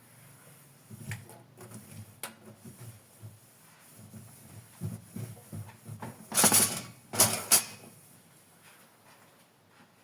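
Dishes and utensils being handled while washing up: a string of light knocks and clinks, then two short, louder swishing rushes about a second apart.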